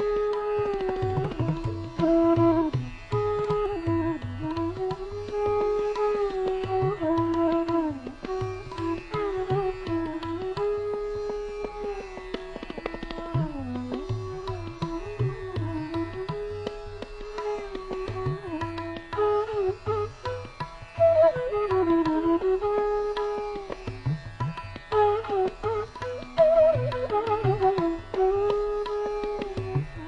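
Indian classical-style instrumental background music: a melodic line with sliding pitch bends over a tabla-like hand-drum rhythm.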